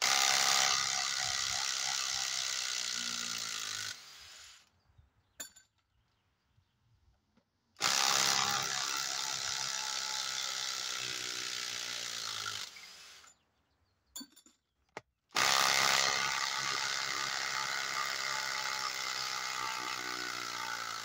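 Kobalt XTR 24-volt max impact driver hammering long screws into a log in three long runs of about four to six seconds each, its pitch slowly dropping under the load during each run.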